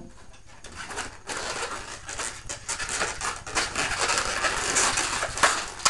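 Latex 260 modelling balloon, a caramel metallic, rubbing and squeaking in the hands as a small round bubble is twisted in it: a dense run of squeaks and rubbing that starts about a second in.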